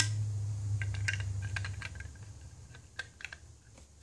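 Light clicks and small taps from hands handling small plastic RC gearbox parts and a plastic parts bag, irregular and closely spaced, with one sharper click at the start. A low hum fades out over the first two seconds or so.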